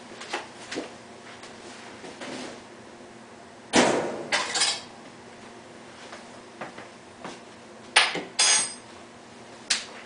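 Hard dishware clattering and knocking: a cluster of sharp clanks about four seconds in, and another cluster near the end.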